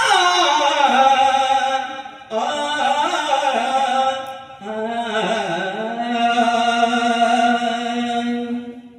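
A singer's voice in a Marathi devotional bhajan, holding long, ornamented notes in three drawn-out phrases with short breaks between them, fading out near the end.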